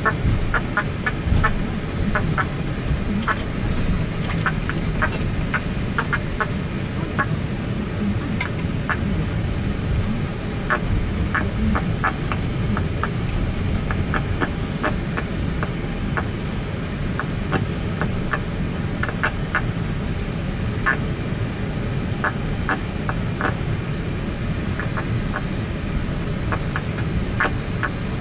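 Cockpit noise of an Airbus A320 taxiing: a steady low rumble with frequent short, irregular clicks over it.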